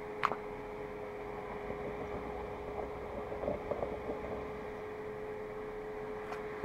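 Steady mechanical hum with a constant tone, heard from inside a stopped vehicle's cab, with a single click just after the start and faint crackling about three to four seconds in.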